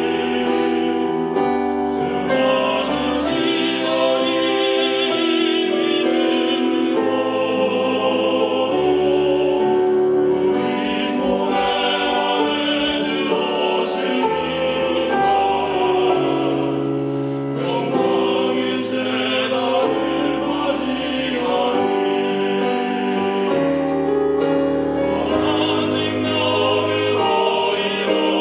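A vocal trio singing a sacred special song in harmony, with long held notes.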